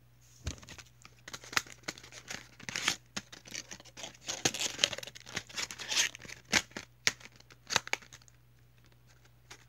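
Clear plastic bag and paper card packaging crinkling and crackling as it is handled. Many sharp crackles and rustles for most of the time, dying down near the end.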